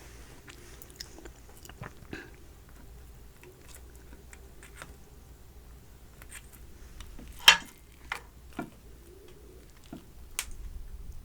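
Close-up eating sounds of a dumpling being bitten and chewed: scattered short, wet mouth clicks with long quiet gaps, and one louder sharp sound about seven and a half seconds in.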